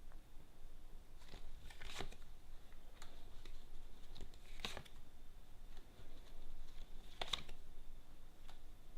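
Tarot cards being drawn and laid down on a table: scattered soft taps and rustles, with three sharper snaps about two, four and a half and seven seconds in.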